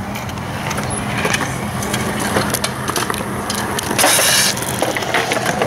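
Skateboards rolling and clacking on concrete, with many short knocks over a steady low hum and a louder rushing noise about four seconds in.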